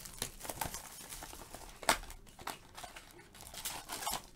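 Plastic wrapping on a trading-card pack crinkling as hands handle and pull at it, in irregular crackles with one sharper crack about two seconds in.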